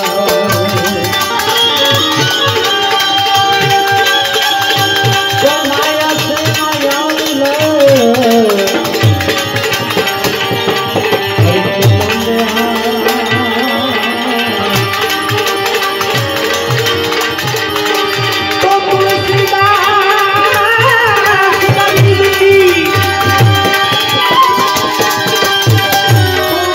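Indian folk music: tabla with deep bass strokes and manjira hand cymbals keep a rhythm under a melody on a benjo (Indian banjo) that slides between notes.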